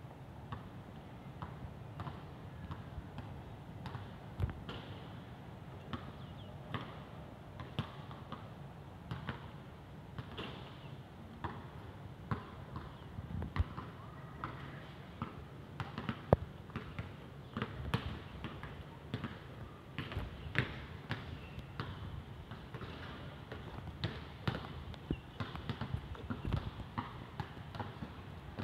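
Scattered, irregular sharp taps and knocks over a steady low outdoor background rumble.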